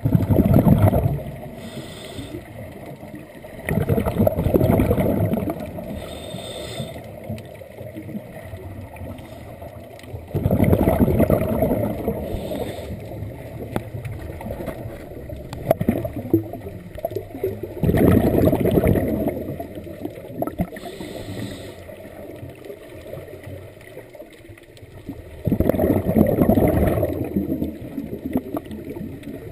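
Scuba breathing through a regulator, heard underwater: five long, bubbly exhalations, one about every seven seconds and each lasting about two seconds, with short, fainter hisses of inhalation between some of them.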